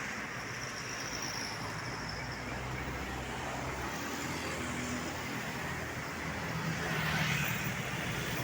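Road traffic running past steadily, with a heavy vehicle's engine growing louder over the last couple of seconds as it approaches.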